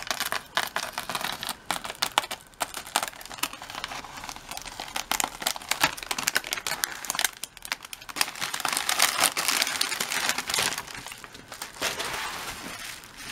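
Plastic poly mailer being slit and torn open, then the bubble wrap of the package inside crinkling as it is pulled out and handled: a dense, irregular run of crackles and rustles.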